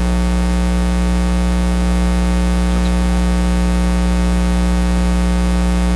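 Loud, steady electrical mains hum with hiss in the recording.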